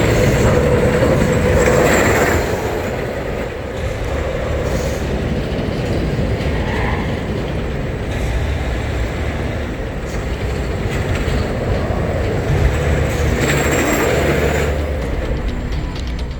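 A rail vehicle rumbling steadily along a track, with a steady tone in the first couple of seconds.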